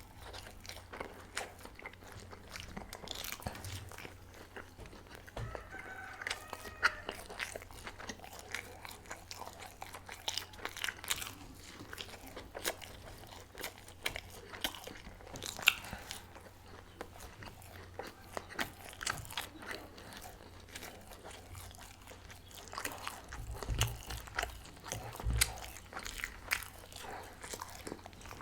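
Close-miked eating of a chicken-stuffed crepe-dough roll: bites and chewing with many small sharp mouth clicks throughout, and two low thumps near the end.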